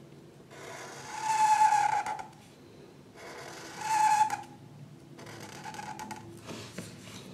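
A drawing tool stroking on paper: two long strokes, each with a squeaky tone (the first about a second and a half, the second shorter), then lighter, shorter scratching.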